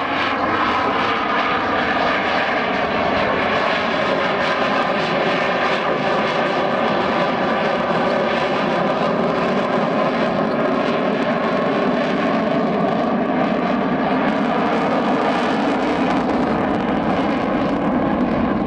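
F/A-18 Hornet fighter jet's twin jet engines running through a display pass, a loud, steady roar with faint tones slowly drifting in pitch.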